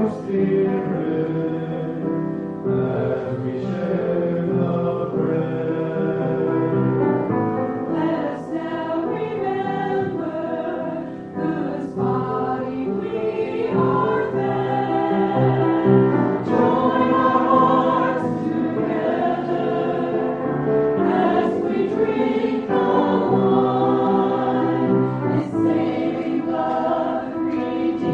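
A choir singing, with sustained chords that change every second or so.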